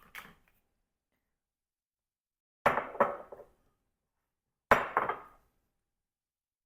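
Two sharp knocks of kitchenware on a countertop, about two seconds apart, each with a short rattling tail.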